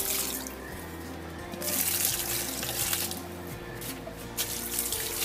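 Water pouring and splashing as potted plants are watered, a hissing rush that comes and goes in stretches of a second or so, over background music with a steady bass line.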